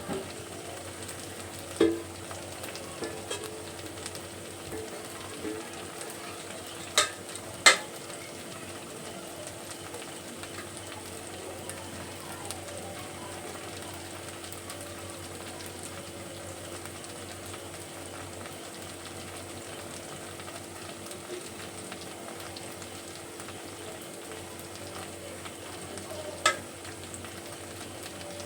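Food sizzling steadily in a pan on the stove. A few sharp metallic knocks of a utensil against the pan are heard: one about 2 s in, two close together about a quarter of the way through, and one near the end.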